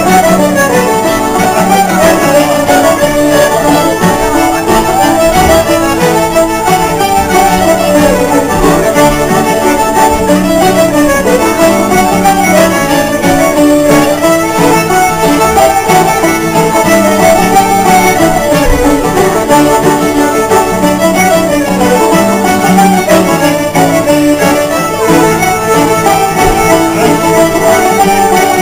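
An Irish traditional tune played by a session band: fiddles and a button accordion carry the melody together over strummed acoustic guitar chords and banjo, in a steady unbroken run.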